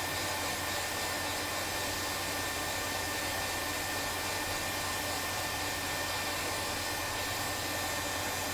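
Hot air rework station blowing at 99% airflow with its nozzle off: a steady rush of air with a faint high steady whine, heating a circuit board to desolder a chip.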